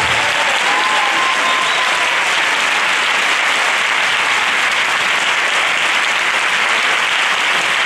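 Audience applauding steadily at the close of a flamenco bulería performance, a dense even clapping.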